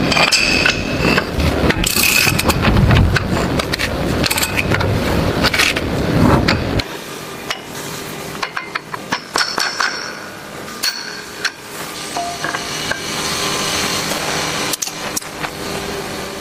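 Metal-on-metal clanks and knocks of heavy tank drive parts being handled and fitted. About seven seconds in the sound drops suddenly to lighter, scattered clinks and ringing taps of steel track parts.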